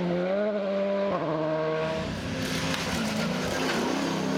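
Rally car engine revving hard as it pulls away on gravel, its pitch rising and then dropping sharply at a gear change about a second in. After about two seconds a lower, steadier engine note takes over, from an old rally truck racing past.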